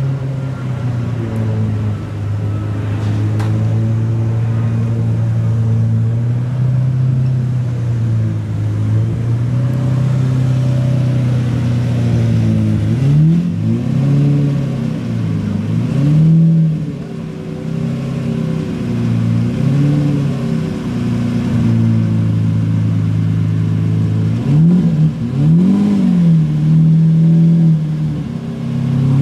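Apollo Intensa Emozione's naturally aspirated 6.3-litre V12 idling steadily, then revved in a series of short blips from about halfway, each rising and falling back to idle.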